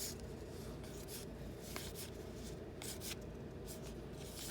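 Trading cards being flipped and slid against one another by hand: soft rubbing scrapes and light clicks at irregular intervals, over a faint steady hum.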